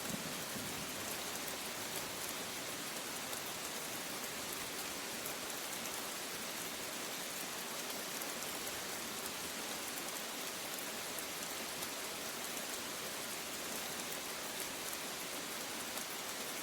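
Steady rain falling, an even hiss with fine patter of drops. The last of a low thunder rumble dies away right at the start.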